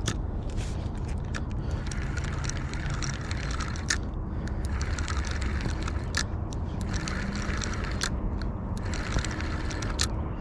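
Spinning reel being cranked in stretches with short pauses while a hooked fish is played, its gears giving a hissing whir, with sharp clicks every second or two. Wind rumbles on the microphone underneath.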